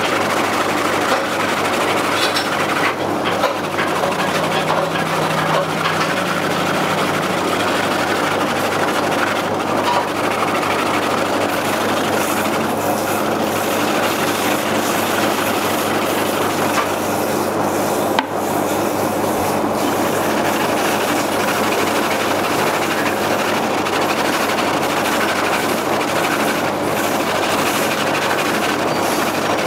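A machine running steadily, a dense, even mechanical noise with a faint low hum.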